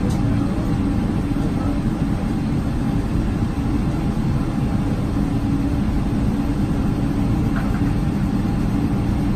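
Cabin noise inside a Boeing 777-300 taxiing, with its engines at low thrust: a steady low rumble with a faint hum.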